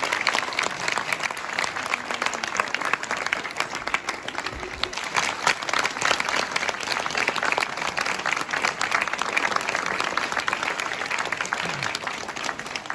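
Audience applauding: many people clapping steadily, starting suddenly and tapering near the end.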